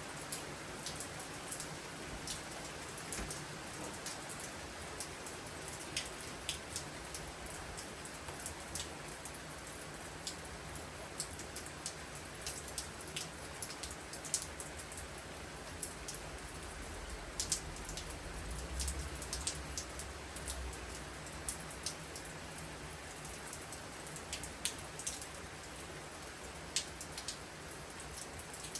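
Steady rain pouring down, with many individual drops ticking sharply on a hard surface. A faint low rumble rises briefly about two-thirds of the way through.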